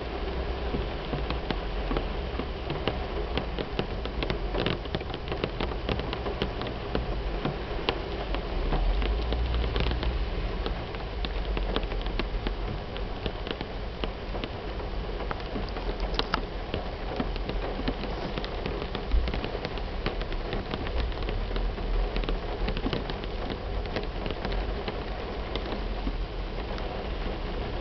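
Heavy rain pouring onto a car's roof and windshield, heard from inside the car: a steady hiss of water thick with tiny drop taps over a deep low rumble.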